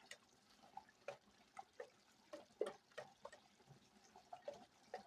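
Alfredo sauce simmering in a pan, with faint irregular plops of bursting bubbles, about two or three a second.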